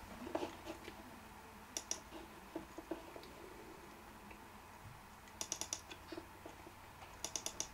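Faint clicks from a laptop computer being operated: a couple of clicks about two seconds in, then quick runs of four or five clicks about five and a half and seven and a half seconds in.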